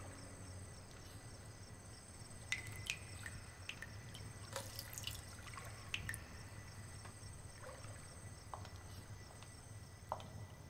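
Water dripping into a filled bathtub: scattered single drops, with a brief flurry of them about halfway through, over a faint steady hiss.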